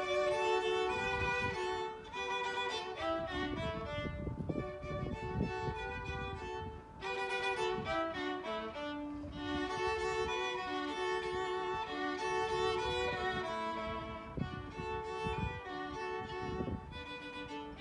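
A violin and a viola playing a duet: two bowed lines moving together, a melody over a lower harmony part, in short and held notes with brief breaths between phrases.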